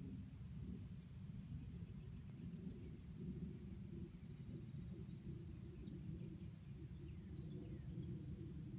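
Evening field ambience: a steady low rumble with small high-pitched chirps repeating about every two-thirds of a second and a faint steady high tone above them.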